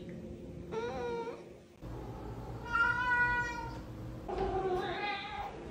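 A domestic cat meowing three times, each call about a second long; the middle meow, about three seconds in, is the loudest.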